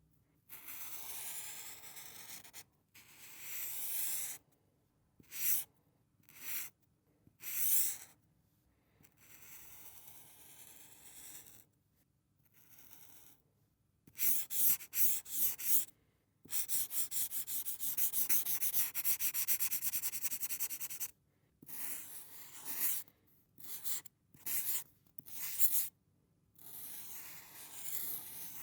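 Highlighter felt tip drawn across paper, squeaky-scratchy strokes of varying length with short pauses between: some long single strokes, a quick run of short back-and-forth strokes about fourteen seconds in, and one long stroke of about four and a half seconds after it.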